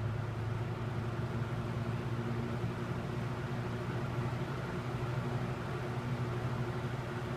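Vintage Kmart Lakewood K-223 box fan running steadily on medium speed: a steady low motor hum under the even rush of moving air.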